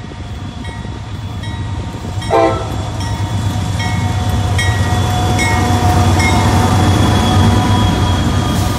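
Norfolk Southern diesel freight locomotives approaching and passing close, their engines rumbling steadily louder as they near. One short horn blast sounds about two and a half seconds in, and a bell rings in a steady rhythm about once every second.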